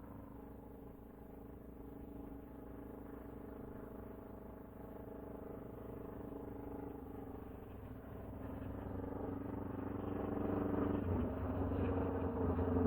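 Motorcycle engine running at a steady pitch, growing steadily louder, with a heavier low rumble from near the end.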